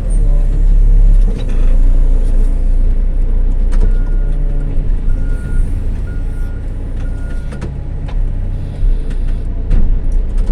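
Diesel engine of a CAT 416F2 backhoe loader running under hydraulic load, working hardest in the first second or so while it lifts a load onto a dump truck bed. From about four seconds in, a backup alarm beeps repeatedly, with a few metallic knocks.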